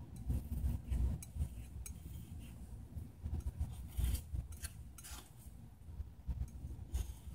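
Metal painter's spreader scraping and tapping as it spreads thermal paste across a chip's metal heat spreader, in short irregular strokes mixed with dull handling knocks.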